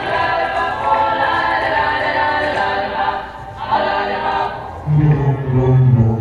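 Background music with choir-like singing; a deep bass comes in about five seconds in and the music grows louder.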